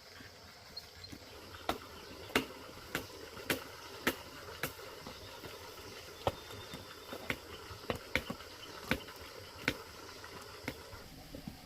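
A series of sharp knocks or strikes, about two a second for a few seconds, then more irregular.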